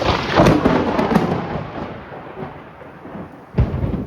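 Thunder from nearby lightning: a sudden sharp crack that rumbles away over a couple of seconds, then a second sharp crack near the end, like a gunshot.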